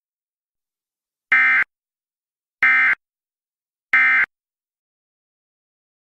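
Emergency Alert System end-of-message signal: three short, identical bursts of SAME digital data tones, evenly spaced with about a second of silence between them, marking the close of the alert.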